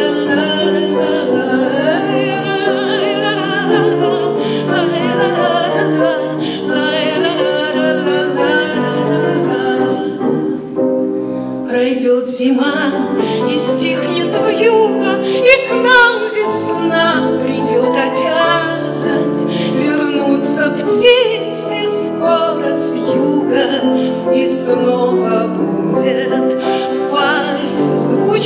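A woman singing a Russian romance in waltz time, accompanied by a grand piano. There is a brief break in the voice between phrases about eleven seconds in.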